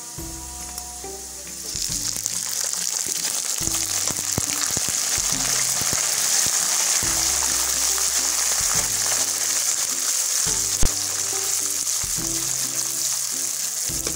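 Onions and pieces of meat frying in hot ghee in a wok, stirred with a steel skimmer; the sizzle jumps much louder about two seconds in and stays steady, as the meat browns in the ghee. A single sharp knock, likely the skimmer against the pan, a little past the middle.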